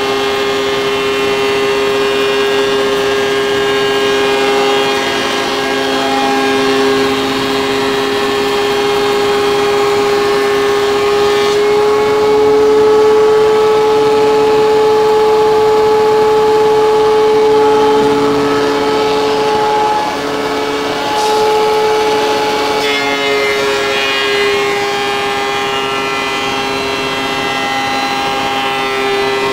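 DeWalt benchtop thickness planer running with a steady, loud whine as a hardwood board is fed through it, planing it down toward 40 mm thickness. About twelve seconds in the whine rises slightly and gets louder, then settles back about twenty-three seconds in.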